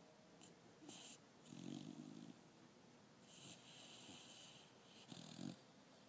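Pit bull puppy snoring faintly in her sleep: a few slow breaths, some a low rasp and others a wheezy hiss.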